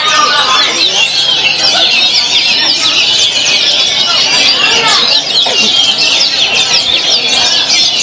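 Many caged songbirds singing at once, a dense chorus of rapid chirps, trills and whistles, among them an oriental magpie-robin (kacer).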